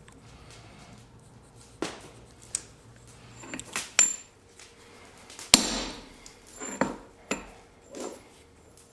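Hand hammer striking steel on an anvil: about eight separate metal blows at an uneven pace, some light and some heavy, the loudest about halfway through, several leaving a short high ring.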